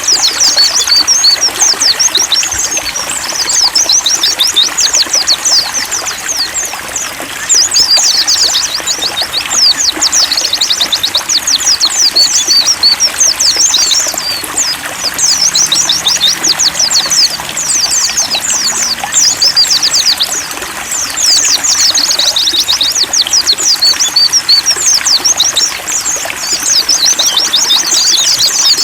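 White-eyes (pleci) singing long, fast twittering phrases of high chirps, with short pauses every few seconds, over a steady trickle of running water.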